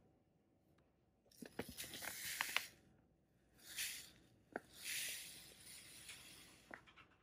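A plastic bag of granulated sugar crinkling as it is handled, then sugar pouring from the bag into a glass bowl of flour and butter crumbs with a soft hiss.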